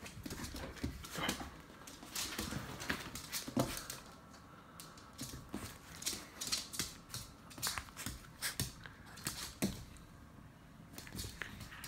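A border terrier jumping and scrabbling on a laminate floor, its claws making irregular clicks and taps.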